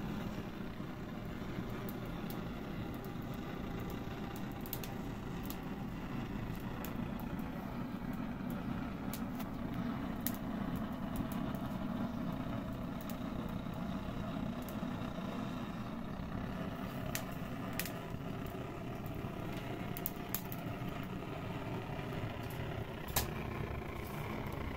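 Steady low mechanical hum with scattered sharp crackles and pops from a charcoal and wood fire grilling skewered kebabs; the loudest pop comes a couple of seconds before the end.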